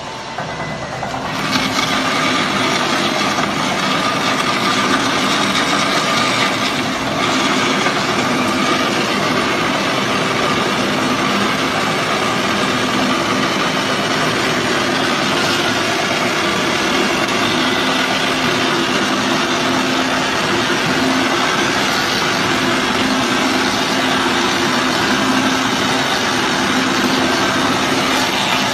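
Tyre-cutting machine running steadily, its motor humming as a large tyre is turned against its cutter. The noise gets louder about a second and a half in and then holds level.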